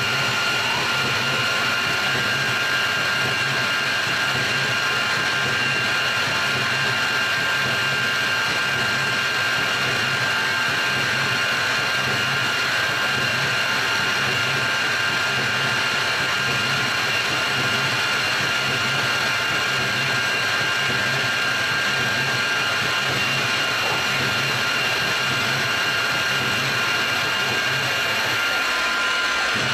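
CNC milling machine spindle running with an end mill cutting a pocket into a pulley: a steady, even machine whine made of several held tones, with a low pulsing underneath that fades near the end.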